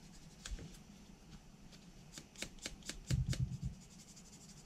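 600-grit sanding sponge rubbed in short, faint scratchy strokes over a small plastic model kit part, smoothing out sanding lines. The strokes come faster from about two seconds in, with a few louder, duller ones a little past three seconds.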